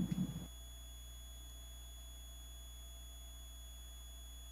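A brief low rough sound cuts off abruptly about half a second in, leaving only steady, faint, high-pitched electronic tones over a low hum.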